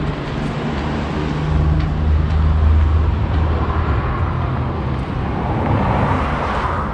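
Street traffic noise: a steady low rumble of road traffic, with tyre noise swelling from about four seconds in as a vehicle passes.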